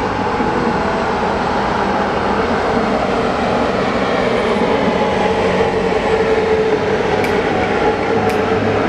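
Electric locomotive running on its own over station tracks: a steady rolling rumble with a held hum, getting slightly louder. A few sharp clicks about a second apart near the end.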